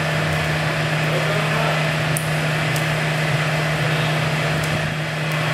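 Hydraulic fatigue-testing rig running steadily, a constant machine hum with a strong low drone and a wash of noise, as the actuator cycles load on a CFRP-repaired prestressed concrete girder. A few faint ticks sound over it.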